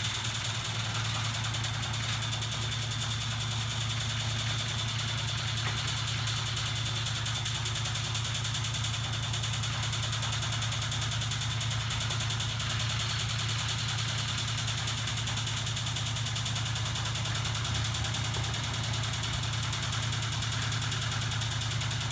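Homemade magnet-coupled crank mechanism running steadily, driven by a small electric motor on a 24-volt battery: an even low mechanical hum with a faint steady high whine over it.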